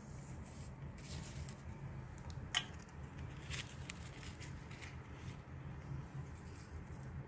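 Faint handling noises, soft rustles and one sharp click about two and a half seconds in, over a low steady hum.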